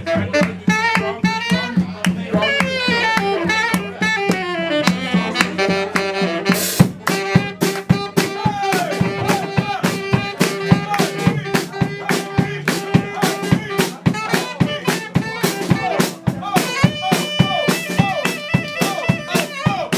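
Live blues band playing: a saxophone plays fast running lines and then a long held note over electric and acoustic guitars and a drum kit keeping a steady beat, with a cymbal crash about seven seconds in.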